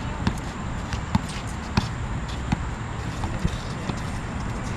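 A basketball being dribbled on a hard court: a string of sharp bounces about every half-second to second, over steady background noise.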